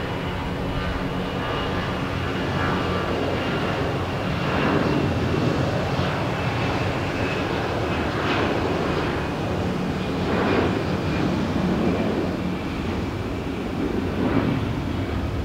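Jet airliner engines at takeoff power: a loud, steady rushing noise that swells and eases every second or two, with a faint high whine early on.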